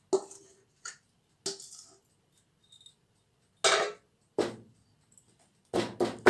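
A spatula knocking and scraping against a steel mixing bowl while cake batter is poured into an aluminium cake tin: a few separate clinks, some with a short metallic ring, then a quick run of knocks near the end as the tin is handled.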